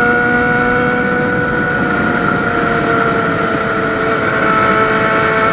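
Honda Hornet motorcycle's inline-four engine running loud at steady revs while riding, its pitch easing down slightly about two seconds in.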